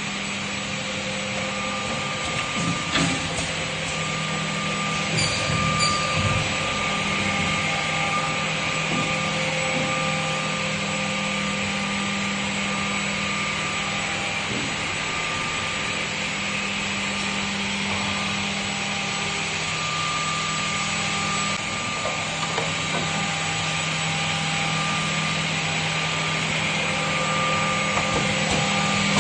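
CNSK 468 seven-function automatic edge banding machine running: a steady motor hum under a higher whine and hiss, with a few knocks in the first several seconds.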